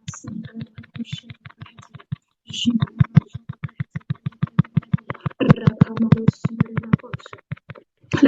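A voice breaking up into rapid, evenly spaced stutters with a brief dropout a little after two seconds in: choppy audio from a poor online connection.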